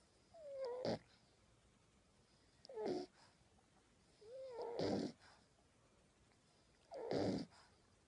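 A sleeping puppy snoring: four snores about two seconds apart, the first and third each opening with a short whistling squeak.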